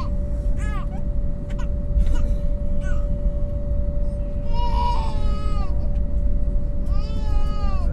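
A young child crying in the airliner cabin in several short wails, the longest about halfway through. Beneath it are the steady low rumble and constant hum of the Airbus A321neo taxiing.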